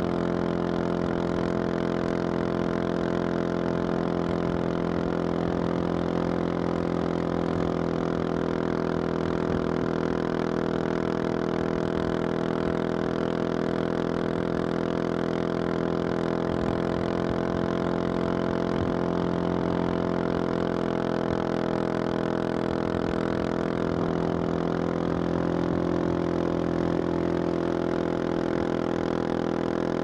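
Husqvarna 701 Supermoto's single-cylinder engine with a Wings aftermarket exhaust, running steadily at cruising speed on the open road. Its note holds nearly constant, with only slight rises and dips in pitch.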